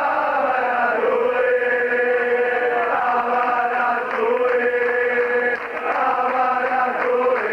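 Large crowd of football ultras chanting in unison, a sung chant of long held notes that change pitch every second or so.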